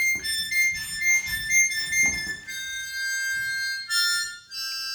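Harmonica playing a few long held notes: chords in the first half, then lower single notes that change about two and a half and four seconds in. Soft low thumps sound under it in the first two seconds.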